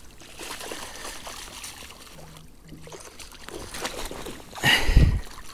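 Water trickling and sloshing at the kayak's side as a large pike is brought in. A heavy, low thump comes near the end.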